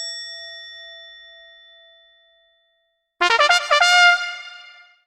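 A single chime ding ringing out and fading, then a short brass fanfare of several quick notes: an edited-in end jingle.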